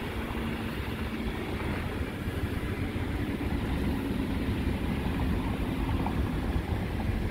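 Wind rumbling on the microphone over a steady low hum of engine noise from a running vehicle.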